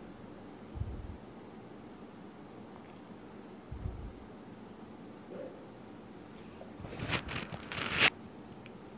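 An insect's steady high-pitched trill runs throughout. Two short dull thumps come in the first half, and a brief cluster of clicks and rustling near the end, with one sharp click the loudest.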